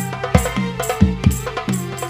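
Al-Banjari hadrah ensemble playing an instrumental: hand-struck frame drums (terbang) in a fast interlocking rhythm, with deep bass-drum beats about two or three times a second and sharp slaps between them.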